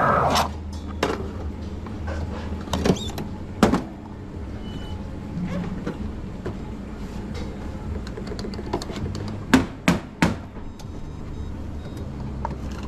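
Knocks and clatter of espresso-making gear at a coffee machine, over a steady low machine hum. A loud steady rush cuts off right at the start, and the sharpest knocks come in two clusters, about three to four seconds in and again near ten seconds.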